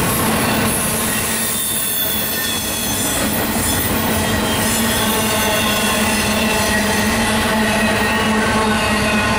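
Double-stack intermodal container cars rolling past at speed: a steady heavy noise of steel wheels on rail, with drawn-out wheel-squeal tones held throughout.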